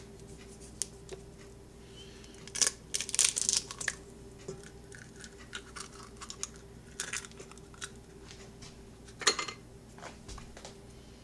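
A raw egg cracked open and its shell pulled apart over a stainless steel mixing bowl: a crack and shell crackling about three seconds in, then a few light clicks and a sharp knock later on, over a faint steady hum.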